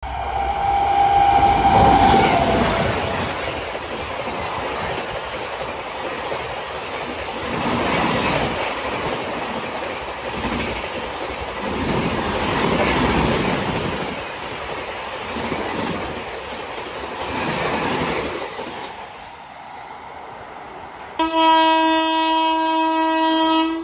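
Indian Railways electric express train passing at speed: a horn blast that drops in pitch as the locomotive goes by, then the rhythmic clatter of coach wheels over rail joints, swelling every couple of seconds. Near the end a second train's horn starts suddenly with a loud, long blast.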